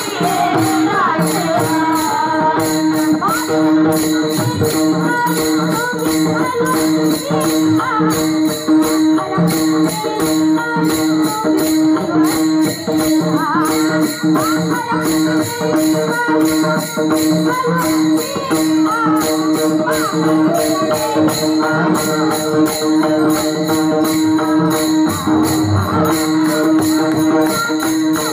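Warkari devotional bhajan: a woman singing a gliding melody over a steady veena drone, with a chorus of small brass hand cymbals (taal) clashing together in a steady quick rhythm.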